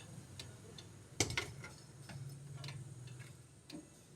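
Scattered light clicks and taps of tools and metal parts being handled during suspension work, with one sharper knock about a second in.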